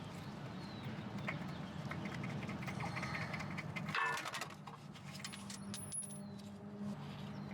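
Hand tools and a small bolt clinking and rattling against metal while the wheel speed sensor's 8mm bolt is taken out, with a louder clatter about four seconds in, over a steady low hum.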